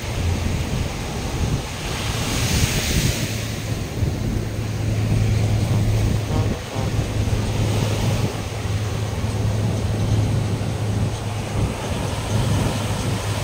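Surf breaking and washing up a sandy beach, with wind buffeting the microphone. A steady low engine hum joins about four seconds in.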